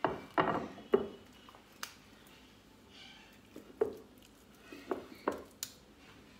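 Hand kneading and pressing soft butter in a glazed clay dish to squeeze out the thyme water: irregular wet squelches and light knocks against the dish, the loudest in the first second.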